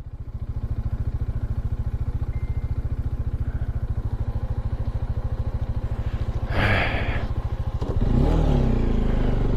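Bajaj Dominar single-cylinder motorcycle engine idling with a steady, even throb. A short clatter comes about six and a half seconds in, and about eight seconds in the engine is revved, its note rising and dipping.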